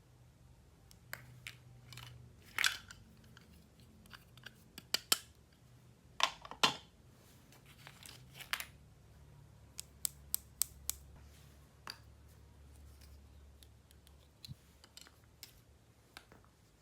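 Plastic toy pieces and packaging being handled during an unboxing: scattered light clicks and taps, with a few louder short rustles about two and a half and six and a half seconds in.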